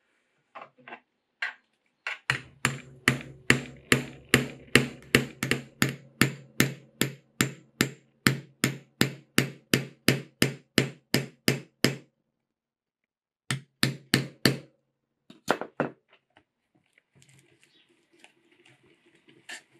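Hammer striking a diamond stitching chisel (pricking iron) through the layered leather of a knife sheath to punch stitch holes. A few light taps, then a long even run of sharp strikes about three a second, a pause, and a few more strikes.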